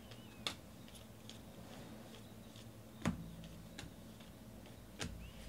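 Stiff football trading cards being flipped through in the hand: a handful of light clicks and snaps as cards are slid off the stack, the loudest about three seconds in and another about five seconds in.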